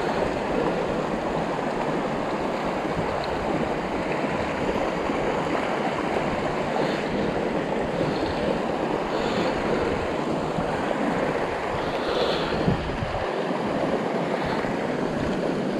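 Mountain stream water rushing, a steady, unbroken wash of water noise.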